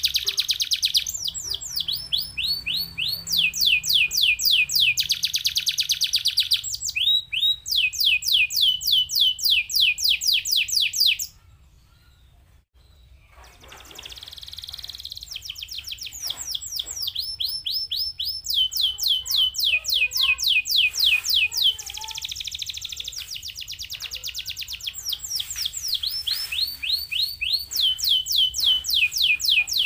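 Domestic canary singing: fast trills of rapidly repeated, downward-sweeping high notes, with some notes held as buzzy rolls. The song breaks off for about two seconds a little over a third of the way in, then resumes softly and builds back to full strength.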